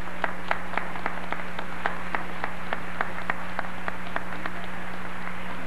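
Applause from people clapping close to the microphone: sharp, even claps about three or four a second that fade out about four and a half seconds in, over a steady low hum.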